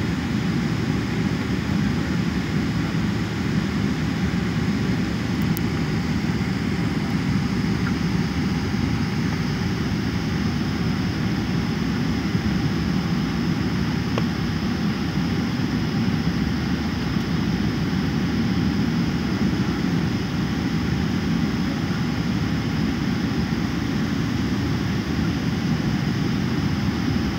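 Steady cabin noise of a Boeing 777-300ER airliner: an even low rush of engine and airflow noise with a faint steady high whine, unchanging throughout.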